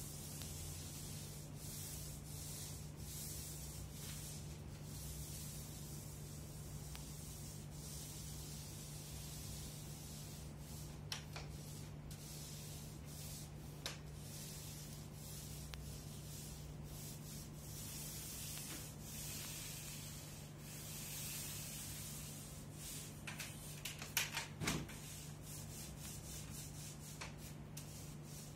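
Short-nap paint roller on an extension pole rolling thinned emulsion paint onto a smooth plaster wall: a repeated rasping swish with each stroke, over a steady low hum. A few sharp clicks come late on.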